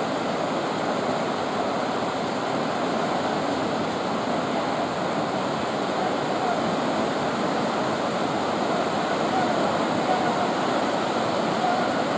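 Whitewater rapids of a large river rushing in a steady, unbroken noise.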